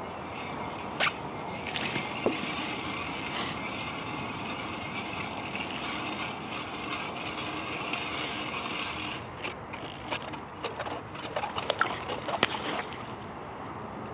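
Small spinning reel being cranked in spells, its gears whirring, as a hooked bluegill is reeled in. A few sharp clicks near the end.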